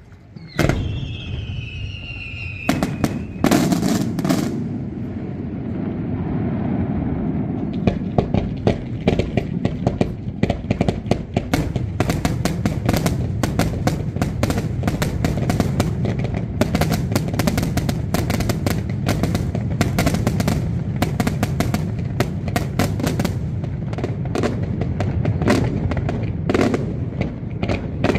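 Daylight fireworks: a shell bursts loudly about half a second in, followed by falling whistles and a few heavy bangs. From about eight seconds on comes a dense, continuous barrage of rapid reports and crackling over a low rumble.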